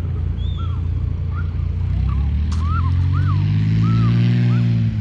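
Light aircraft engine running over a steady low rumble. From about two seconds in, its droning hum grows louder and rises slightly in pitch, loudest near the end.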